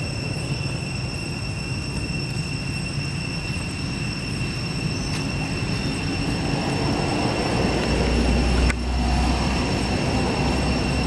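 Steady outdoor background noise: a low rumble that grows louder about eight seconds in, under a constant high-pitched whine. There is a single sharp click a little before the end.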